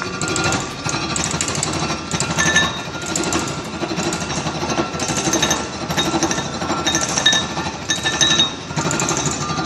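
Universal milling machine with a Renânia gear-cutting attachment cutting the teeth of a cast-iron gear: a dense, rapid chattering of the cutter on the iron that swells in waves about once a second, over a steady machine whine.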